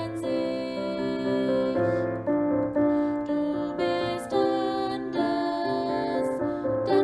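Slow, gentle piano music: sustained chords and melody notes changing about once a second.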